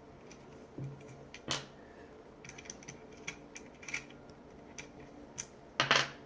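Light clicks and taps of screws and a tool being handled against the reciprocating saw's housing as a screw is put back in, with one louder, brief burst near the end.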